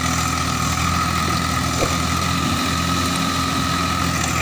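Swaraj 744 tractor's diesel engine running steadily at idle.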